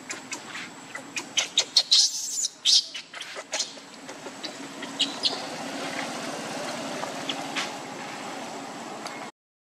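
A quick run of sharp clicks and high-pitched squeaks, then a few short, high chirps over a steady low hum. The sound cuts out abruptly near the end.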